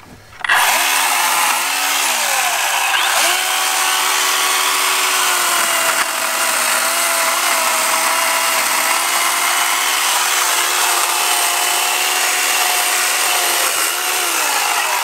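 Electric chainsaw running at speed, likely cutting wood. About two seconds in its pitch sags as it bogs under load, then recovers about a second later.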